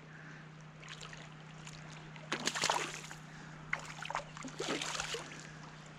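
Water splashing in a few short bursts, about two and a half, four and five seconds in, over faint moving water and a low steady hum.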